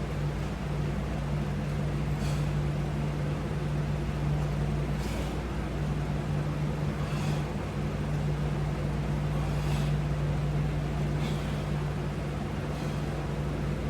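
Steady low electrical hum, with faint short hissing strokes about every two seconds in time with resistance-band pull-row reps.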